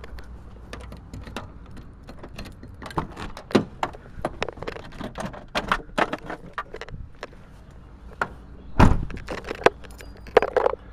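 Handling noise from a camera being carried and rubbed against clothing: rustling and irregular clicks and knocks, with one heavy thump about nine seconds in.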